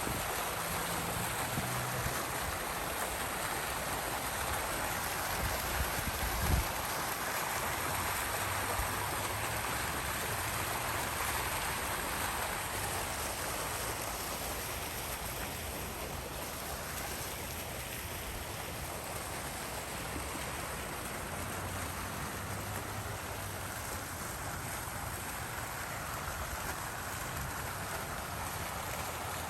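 Water fountain splashing steadily, with a brief low thump about six seconds in.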